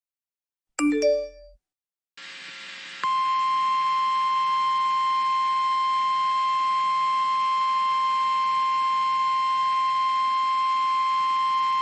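A short chime about a second in, then faint hiss, then from about three seconds in a loud, perfectly steady single-pitch alarm tone of about 1050 Hz. This is the NOAA Weather Radio warning alarm tone that comes before an emergency warning broadcast.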